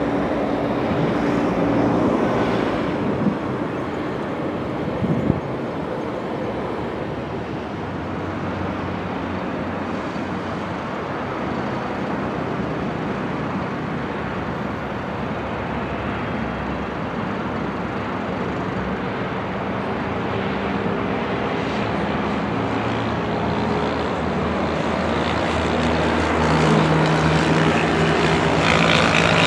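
Jet engine noise from aircraft at the airfield: a small business jet's turbofans running as it taxis and lines up on the runway. A steady hum comes in and the noise grows louder near the end.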